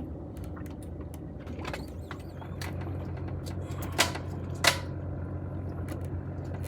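A steady low mechanical hum, growing a little stronger partway through, with scattered light ticking and two sharp knocks about four and four and a half seconds in.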